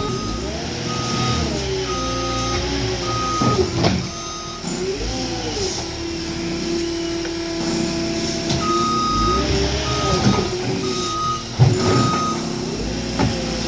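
Diesel heavy-equipment engine revving up and down under hydraulic load, with a backup alarm beeping steadily as the machine reverses: one run of beeps in the first few seconds and another near the end. A few sharp clanks cut through, the loudest near the end.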